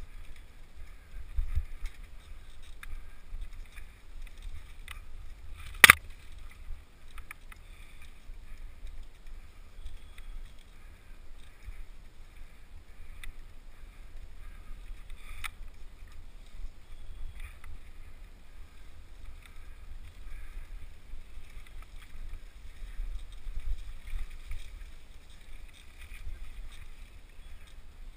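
Mountain bike rolling fast down a dirt singletrack trail, heard as a steady muffled low rumble of trail bumps and wind on a helmet-mounted GoPro. A single sharp knock about six seconds in.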